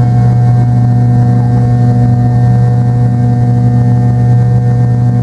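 Steady cabin drone of a McDonnell Douglas MD-83 in its climb after takeoff. The rear-mounted Pratt & Whitney JT8D turbofans are heard from inside the cabin as a loud, even low hum with a few steady higher tones above it.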